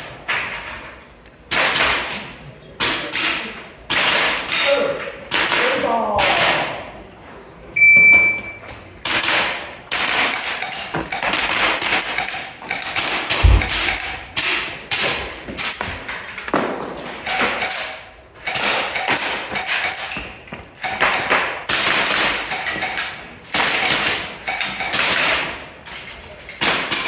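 Airsoft handgun firing a long string of shots at uneven intervals, with BBs striking steel targets, one of them giving a short ringing ping about 8 seconds in. A single deep thud comes about halfway through.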